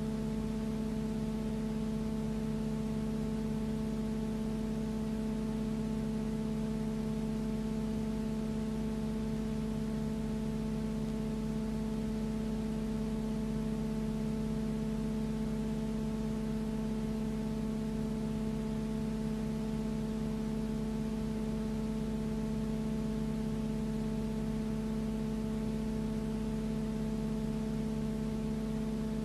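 Steady hum made of several constant tones over an even hiss, unchanging throughout: background noise on a silent cine-film soundtrack, with no sound of the aircraft in it.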